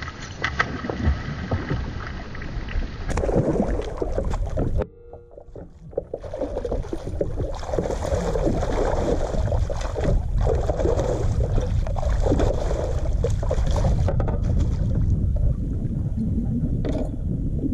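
Hooked bass splashing and thrashing at the water's surface beside a kayak, then in a landing net, with sharp splashes early on and a steady rush of churning water later. The sound breaks off briefly about five seconds in.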